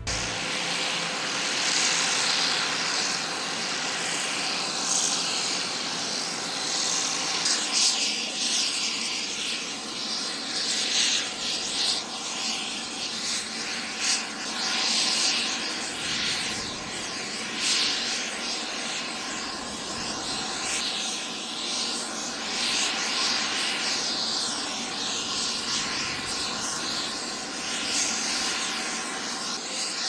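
Jet engines of a parked business jet running steadily on the apron: a continuous high whine and rush.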